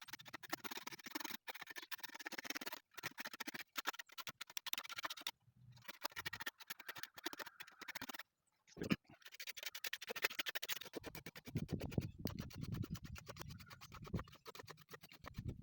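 Small hand plane shaving a wooden stick's ball knob: many short scraping cuts in quick runs, with brief pauses between runs.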